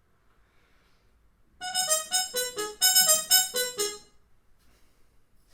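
Trumpet with a metal Harmon mute, stem removed, playing a quick phrase of short notes for about two seconds, starting about a second and a half in, with the mute's bright, nasal, buzzy tone.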